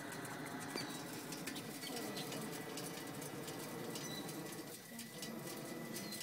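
Quiet outdoor background with faint bird calls, a few short high chirps over a steady low hiss.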